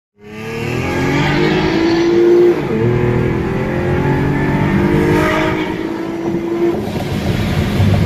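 2013 Chevrolet Camaro's engine accelerating hard, heard from inside the cabin, its pitch climbing steadily and dropping at an upshift about two and a half seconds in, then climbing again until another shift near seven seconds.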